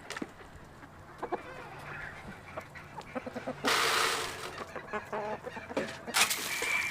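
Backyard chickens clucking with short calls throughout. There are two loud bursts of rushing noise, one about halfway through and one near the end.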